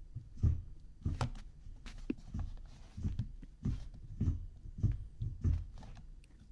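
A run of soft, low thumps, about two a second.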